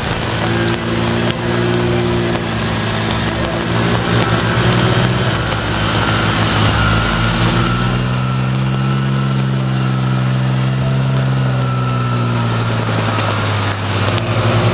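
A Jeep Wrangler's engine working hard under load as it crawls through deep mud, its revs climbing slowly and easing off again.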